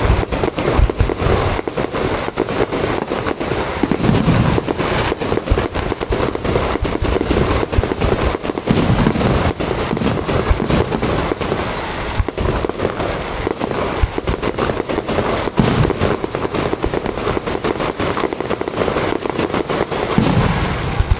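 Aerial fireworks shells bursting and crackling in a dense barrage, with sharp bangs and pops coming many times a second.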